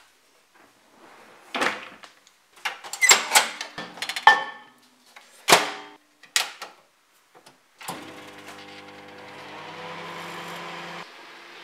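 A few knocks and clatters of a cupboard and appliance door being handled, then a Panasonic dial-controlled microwave oven starts about eight seconds in and runs with a steady hum.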